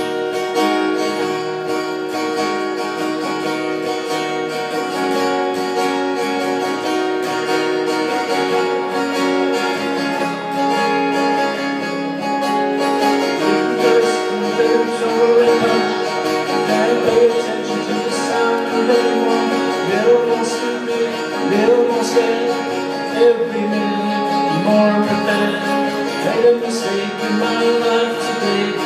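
Two acoustic guitars played together in a slow, steady song, starting at once. A man's singing voice comes in about halfway through.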